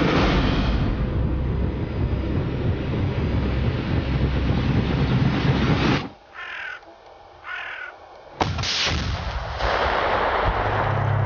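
Loud continuous noise for about six seconds gives way to a quiet field where a crow caws twice. Then comes a sharp bang, and about a second later the long, heavy blast of an RPG-7 grenade exploding against the armoured-glass target.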